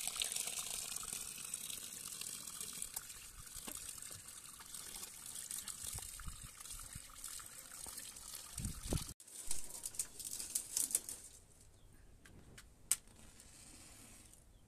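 A stream of running water pouring into a large metal basin of chopped cowpea leaves while a hand stirs them to wash them, a steady splashing hiss. About nine seconds in it stops suddenly, giving way to a few sharp splashes and then quieter sounds with one sharp click.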